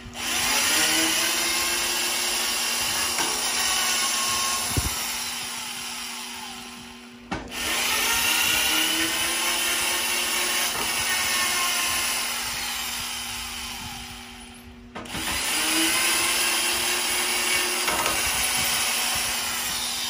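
Hitachi electric tapping machine running as the tap cuts a thread into steel plate, done without cutting oil. It runs three times, with brief stops about 7 and 15 seconds in, and the sound fades just before each stop.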